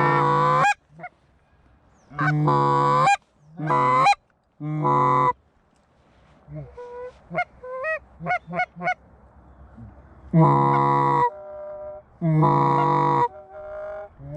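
Canada goose honks: a series of loud, drawn-out honks about a second long, with quieter, quick rising clucks in between and fainter honking near the end.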